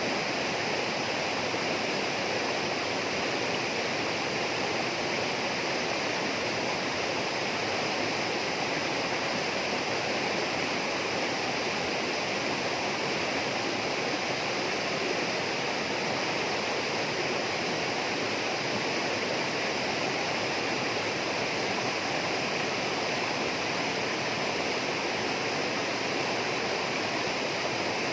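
Steady rushing of flowing water, an even, unbroken wash of sound with no changes.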